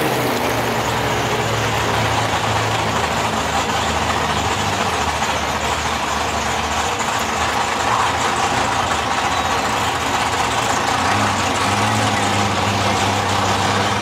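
Drag race cars' engines idling with a steady low rumble over a wide wash of background noise; the rumble shifts slightly about eleven seconds in.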